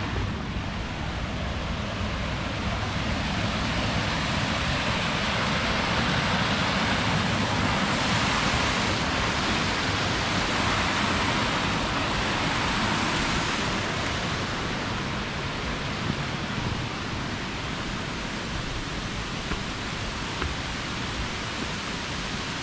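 Shallow river water rushing over stepped rock ledges in a steady hiss, growing louder for several seconds midway and then easing off.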